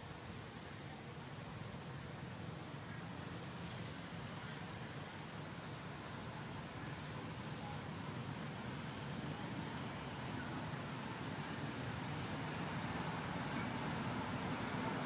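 Steady high-pitched chorus of insects, one unbroken shrill tone with a fainter lower one beneath it, over a constant background hiss.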